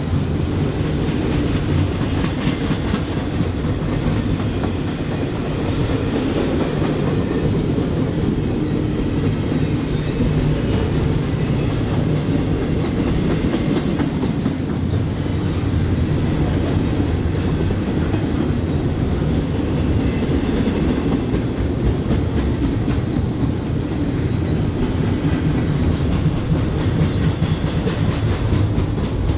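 Freight train cars rolling past, steel wheels clicking over the rails with a steady, loud rumble.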